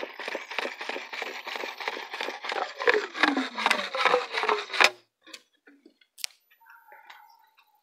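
Liquid pouring from a hose into the funnel inlet of a biodigester pipe, splashing and gurgling as it drains down, with a few falling gurgles; it stops abruptly about five seconds in.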